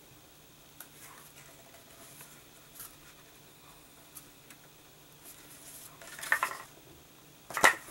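Folded white card stock being pressed flat and handled: faint paper rustles and small clicks, a louder rustle about six seconds in, and a single sharp knock near the end.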